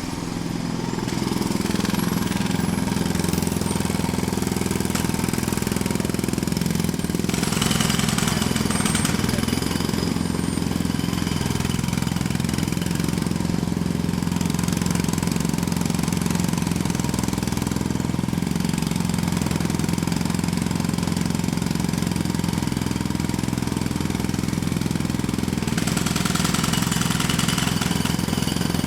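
Jackhammer hammering at close range without a break, over a steady engine drone. It turns harsher and brighter for a few seconds about a quarter of the way in and again near the end.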